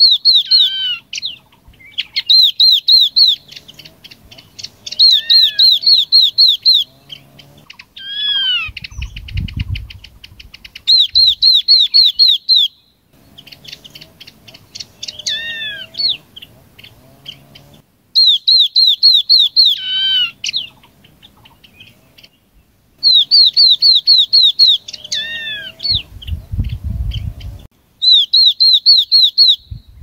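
Yellow-eyed babbler song played as a lure call to draw in a flock: loud phrases of about ten quick, clear rising notes, often ending in a few falling slurred whistles, repeated about every three seconds. A low rumble comes twice, once about nine seconds in and once near the end.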